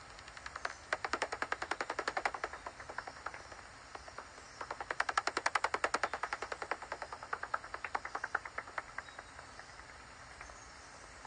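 Common pipistrelle bat echolocation calls as heard through a bat detector: rapid dry clicks, about ten a second. They come in two louder runs of a second or two each, one about a second in and one about five seconds in, then fainter scattered clicks.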